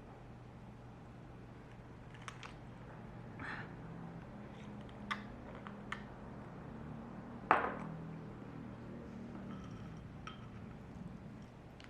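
Scattered light clicks and clinks of small objects being handled, with one sharper knock about seven and a half seconds in, over a steady low hum.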